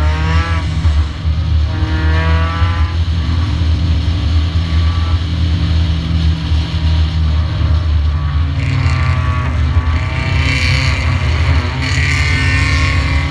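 Stock race car's engine at racing speed, picked up by a camera on its own hood: a loud, steady low drone whose pitch rises and falls several times as the driver works the throttle through the turns.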